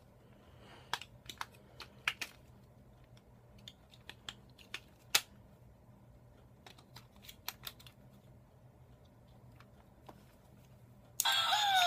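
Scattered small clicks and taps from hands handling and fiddling with an electric Santa Claus plush toy. Near the end the toy suddenly starts playing its electronic song, loud.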